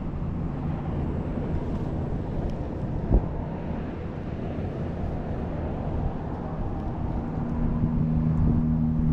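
Steady low rumble of road traffic and wind on the microphone, with a vehicle's engine hum building near the end. A single sharp knock about three seconds in.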